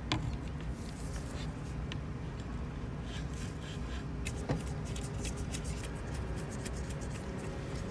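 Steering wheel being worked onto a Works Bell quick release: light rubbing and small ticks of metal parts, with a sharp click right at the start and another about four and a half seconds in, over a steady low rumble.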